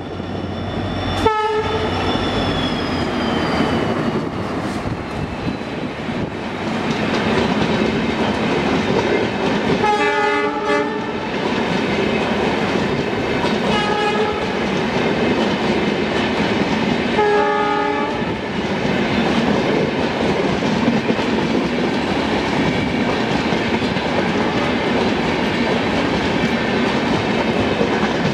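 Passenger train's coaches rolling steadily past with the clickety-clack of wheels on the rails, behind an EMD WDP4D diesel locomotive. A high whine falls in pitch over the first few seconds as the locomotive goes by. The horn sounds four times: a short toot about a second in, a longer blast about ten seconds in, a short toot a few seconds later and another longer blast about eighteen seconds in.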